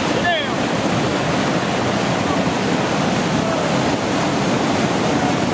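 River rapid's whitewater rushing, loud and steady.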